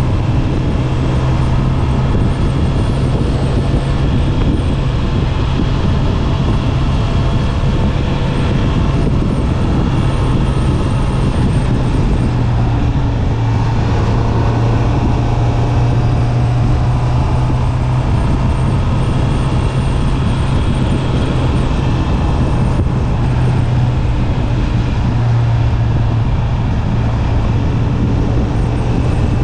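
Honda CB650R's stock inline-four engine running at a steady cruise, its note held fairly even, over road and wind noise.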